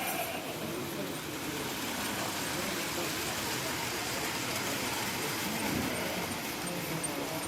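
Model train running on its track, a steady rushing whirr of motor and wheels, with faint murmuring voices of people in the room.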